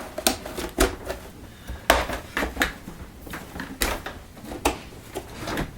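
Plastic clicks and knocks from a Miele S5210 vacuum cleaner as its GN dust bag is fitted into the bag compartment: about eight separate sharp clicks spread irregularly through the few seconds.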